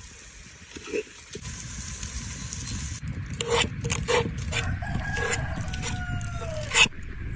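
A rooster crowing once: one long call that bends down in pitch at the end. Under it is a steady low rumble, with several sharp knocks around the middle and one just before the end.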